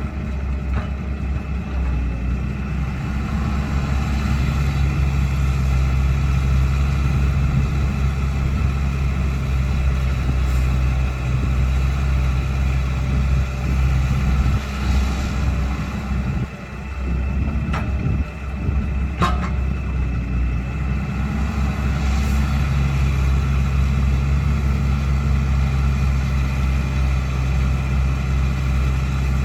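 Caterpillar 312 excavator's diesel engine running steadily. A stronger engine note comes in for long stretches and drops away midway, where two sharp knocks are heard.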